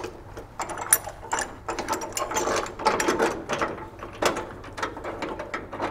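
Hand ratchet clicking in short, irregular runs, with light metal clinks, as a truck's cab mount bolt is turned up through the new mount from below.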